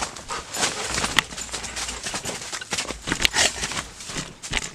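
Irregular rustling and light knocks as large dogs move about close to the microphone inside a tent.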